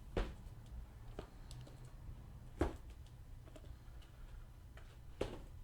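A few separate sharp clicks and knocks, with the loudest about two and a half seconds in, from things being handled on a table, over a faint steady low hum.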